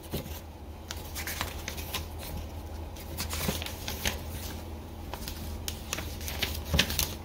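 Pages of a bound paper user's manual being turned and handled: light rustles and soft clicks, over a low steady hum.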